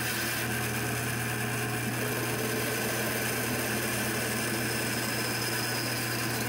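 Bandsaw running with a steady hum while its blade cuts a notch into a small wooden rail.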